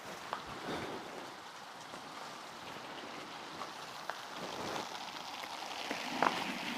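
Rain falling steadily, an even hiss of rain with scattered individual drop hits, a few louder ones near the end.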